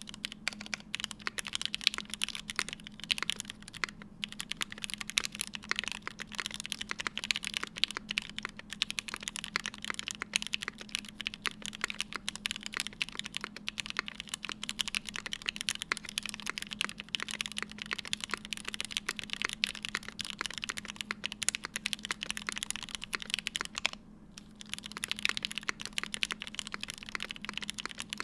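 Continuous fast typing on a Vega mechanical keyboard with stock Gateron Oil King linear switches, an aluminium plate, no case foam and GMK ABS keycaps: a dense run of keystroke clacks with a brief pause a little after 24 seconds. A faint steady hum sits underneath.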